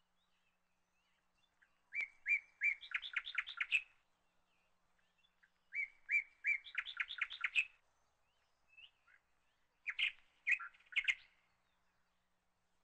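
A small bird singing: three short phrases about four seconds apart, each a few clear chirps running into a quick series of notes.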